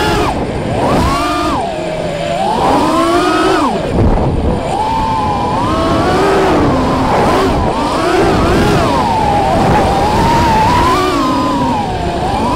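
A 5-inch FPV quadcopter's Emax RedBottom 2205 brushless motors and HQ 5x4x4 props whining, the pitch swooping up and down over and over as the throttle is punched and chopped through flips and dives. A rushing noise runs underneath, and the pitch drops deepest about four seconds in.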